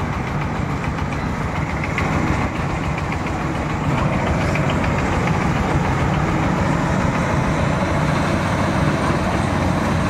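Marksan K-BOS MS1200 combine harvester running steadily as it harvests rice, a continuous engine and machinery hum that gets louder about four seconds in.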